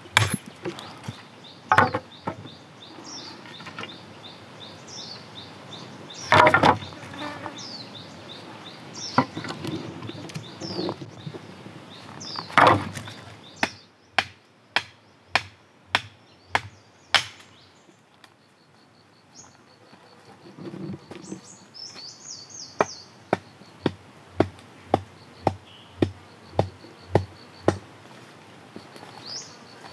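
A machete chopping into wooden stakes, with sharp strikes at about one and a half a second and a pause partway through, and two louder, longer strikes earlier on. Behind it an insect buzzes steadily on a high note and birds chirp.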